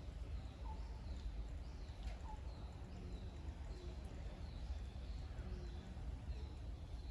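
Short, high, falling chirps repeating every half second or so, over a steady low background rumble.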